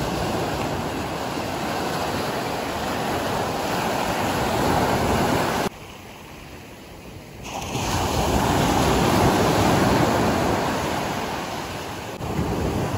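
Ocean surf breaking and washing up the beach, a steady rush of waves. About halfway through it drops away suddenly for a second or two, then swells back up as waves break again.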